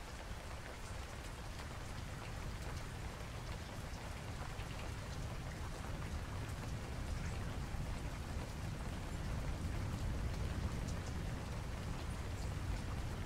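Steady hiss of rain with a low rumble underneath and faint scattered drop ticks, growing slightly louder toward the end.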